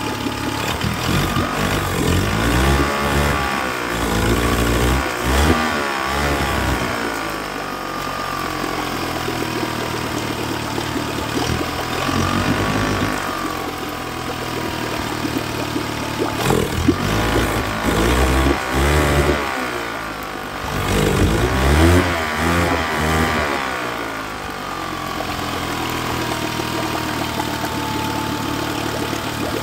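Yamaha 25 hp four-stroke outboard engine running on a test run after a powerhead replacement. It is revved up and let back down several times, then settles to a steady idle near the end.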